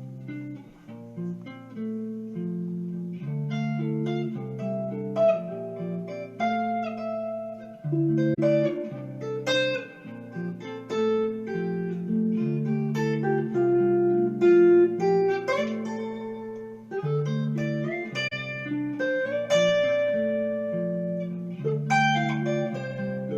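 Instrumental guitar music: plucked notes and chords ringing over held low bass notes that change every second or so, with no singing.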